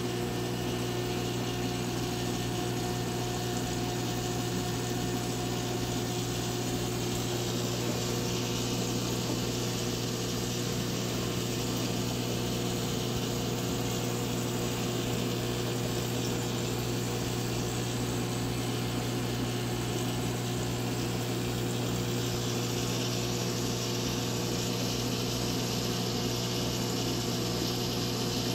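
Aquarium pump running with a steady electric hum and a wash of moving water.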